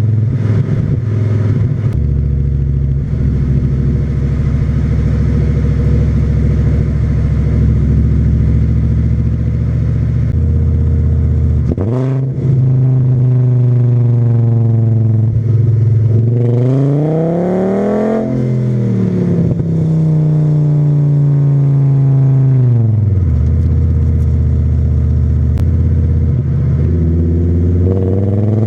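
VW VR5 20V five-cylinder engine and its straight-through exhaust (stock cat, Milltek resonator, 2.25-inch pipe) under way: a steady cruising note, a quick dip and rise in pitch about twelve seconds in, then revving up with a rising pitch around sixteen seconds in, falling back over the next few seconds, and rising again near the end.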